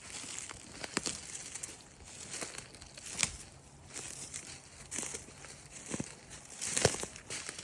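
Soft rustling and crinkling, with a few sharp clicks about a second in, about three seconds in and near the end.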